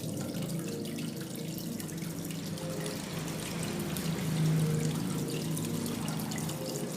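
Water pouring and trickling steadily over a small cement decorative waterfall.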